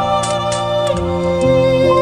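Slow, calm instrumental background music with long held notes that change every half second to a second, with a few brief clicks over it.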